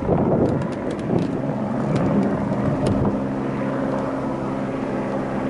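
Helicopter flying, a steady drone of engine and rotor.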